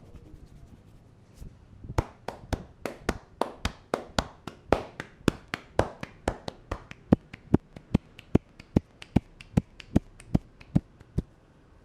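Percussive head massage: a barber's hands striking in a quick, even rhythm of about three slaps a second. The strikes start about two seconds in and stop shortly before the end.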